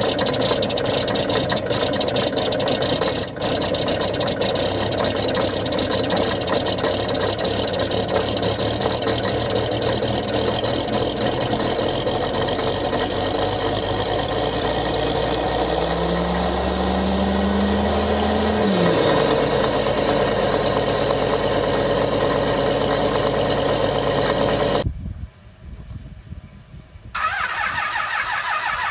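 Large diesel engine of a wheeled landfill compactor running cold, with heavy black smoke from its stack; about sixteen seconds in, its note rises for a few seconds and then drops back. Near the end, after a short break, a pickup truck's diesel engine takes over with a quick rhythmic pulse.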